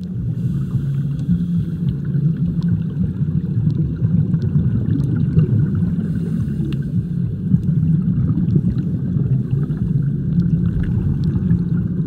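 Muffled underwater sound in a swimming pool, heard through a submerged camera: a steady low rumble with faint scattered clicks.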